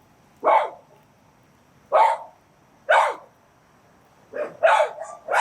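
A dog barking, six short barks at uneven intervals, the last three coming close together near the end.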